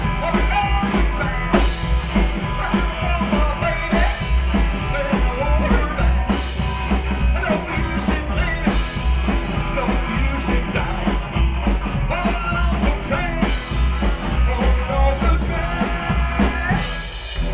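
Live rock and roll band playing with drum kit, electric guitar and singing. Near the end the playing drops away to a held, ringing chord.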